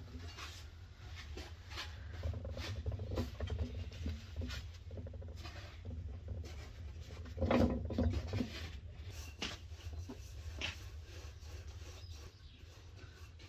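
Hands spreading and pressing thin flatbread dough onto a hot iron pan: soft pats, light scratchy rustles and scattered small clicks, with a louder bout of handling about seven and a half seconds in. A steady low rumble runs underneath.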